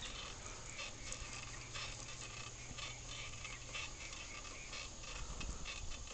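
Bicycle rolling along a paved road: light clicks and rattles come irregularly, several times a second, over a low steady rumble.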